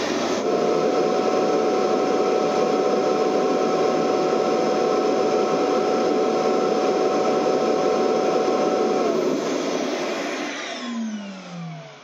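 Roidmi EVE Plus dust station's self-emptying suction motor running at full power, drawing dirt out of the docked robot's bin, with a steady whine over its rush of air. About nine seconds in it shuts off and spins down, its pitch falling as it fades out.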